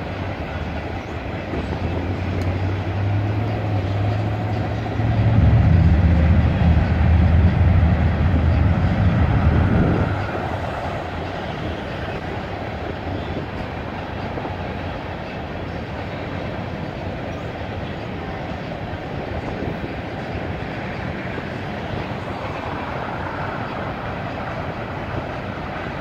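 Freight train cars rolling past at a steady pace, with a continuous rumble and wheel clatter. A loud low engine drone joins this early on, grows louder about five seconds in, and cuts off abruptly about ten seconds in.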